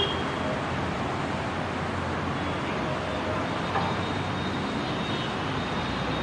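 A pair of ALCo diesel locomotives working hard as they accelerate away from a station halt, heard from a distance as a steady rumble.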